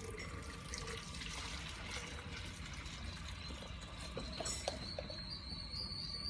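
Water running and splashing while a hydroponic growing tray is washed, with a few light knocks about four and a half seconds in.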